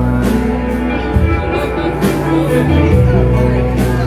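Live band playing: saxophone over electric guitar, bass and drums, with a moving bass line and cymbal hits.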